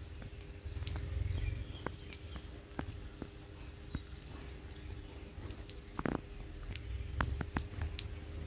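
Cat eating rice from a metal dustpan: irregular small clicks and smacks of chewing, with a louder knock about six seconds in.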